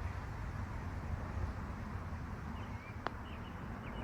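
Wind rumbling on the microphone, with one sharp click about three seconds in and a few faint bird chirps.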